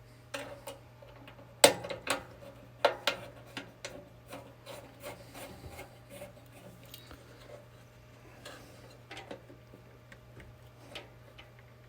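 Small hard parts being handled and fitted by hand: scattered sharp clicks and rubbing, with two louder clicks near the start, as a fuse is seated in its fuse holder.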